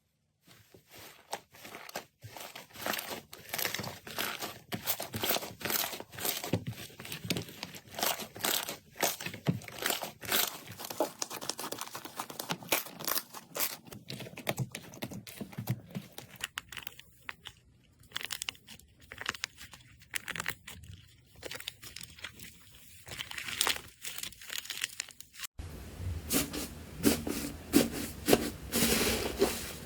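Slime being squeezed, pressed and pulled apart by hand, giving dense, irregular crackling and tearing pops. The crackling thins out in the middle, and then the sound changes abruptly as a different slime clip begins, with a steadier background under it.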